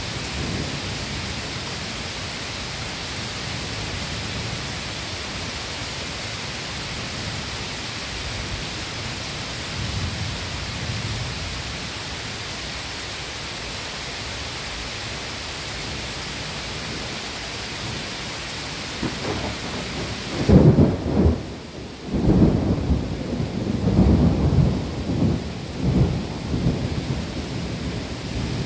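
Thunderstorm: steady rain hiss for about twenty seconds. Then the hiss abruptly thins and several loud, low peals of thunder rumble one after another.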